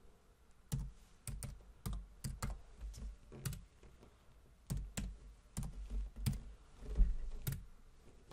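Typing on a computer keyboard: irregular runs of key clicks with a dull thud under each, starting just under a second in, one stroke a little before the end louder than the rest.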